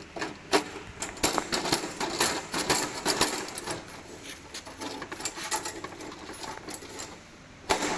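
Metal parts of a hand push seeder's frame rattling and clicking as a metal rod is worked between the handle tubes to line up the bolt holes: a quick, irregular run of metal knocks for several seconds, then a pause and one sharp click near the end.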